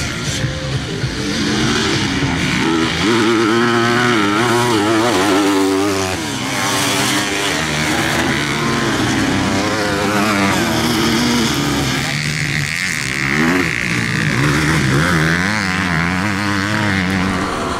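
Several racing motorcycle engines revving up and down as the bikes race around the circuit, their pitch rising and falling as they accelerate, shift and pass.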